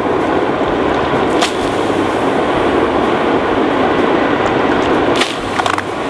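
Homemade charcoal foundry furnace running under its forced-air blower: a steady rush of blown air and fire, with a few sharp crackles from the burning charcoal.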